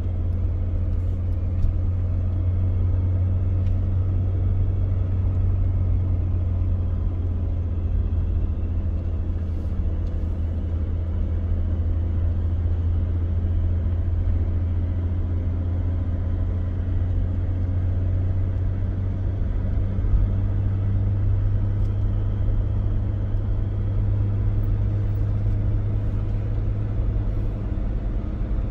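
A steady low rumble, with a faint hum laid over it, running evenly and without a break.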